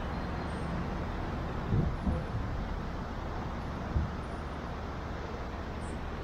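Steady hum of city traffic, with a few short low thumps about two and four seconds in.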